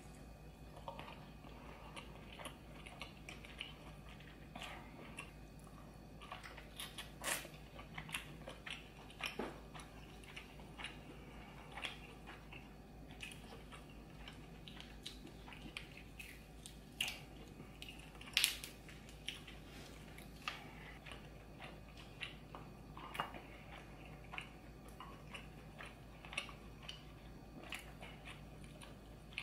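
Close-miked mouth sounds of a person biting and chewing lobster tail meat: scattered wet smacks and small clicks, with one sharper click about two-thirds of the way through.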